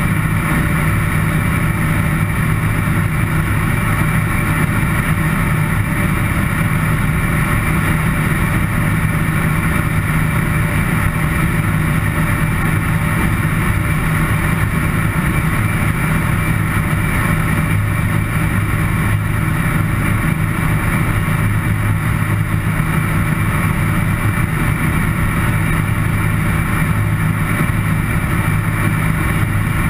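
Homebuilt light aircraft's engine and propeller running at a steady, unchanging drone in cruise flight.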